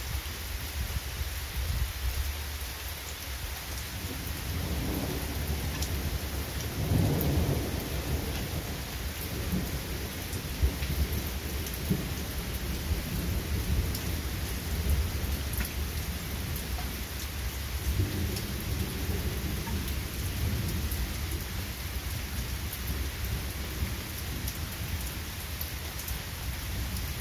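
Steady rain falling on grass and trees, with thunder rumbling twice: a long roll starting about four seconds in, and another about two-thirds of the way through.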